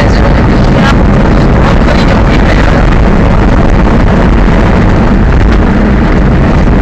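Monster truck's engine running loud under way, heard from inside the cab, with a few sharp knocks from the truck bouncing over the dirt course, one clear one about a second in.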